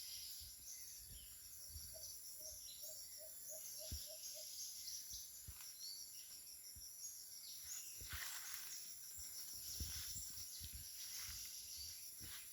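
Forest ambience: insects keep up a steady high-pitched drone, while a run of about eight short, evenly spaced low notes sounds about two seconds in. Scattered soft thumps and a brief rustle near the middle.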